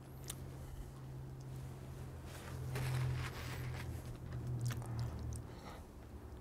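Soft squishing and rustling as hands handle a raw stuffed chicken, kitchen twine and a paper towel, with a few light clicks. A steady low hum sits underneath and stops about five and a half seconds in.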